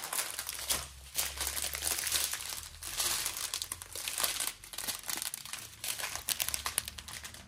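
Small plastic bags of diamond-painting drills crinkling as a stack of them is handled and shuffled through, a dense, irregular crackle.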